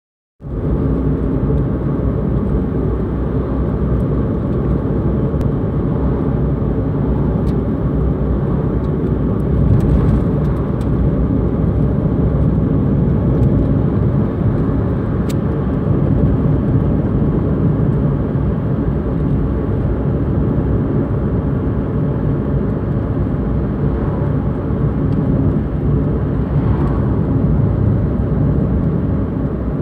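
Steady low rumble of a car being driven along a road, heard from inside the cabin: engine and tyre noise on tarmac.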